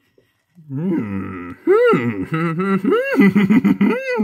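A man's wordless excited vocal sounds: a falling groan about a second in, then three drawn-out moans that rise and fall in pitch. They are sounds of delight at handling a new action figure.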